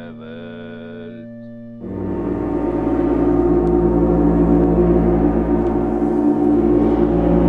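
Simulated chamber-ensemble music: about two seconds in, a sudden gong-like stroke opens a loud, swelling wash of sustained chords over a held low tone, and it rings on to the end.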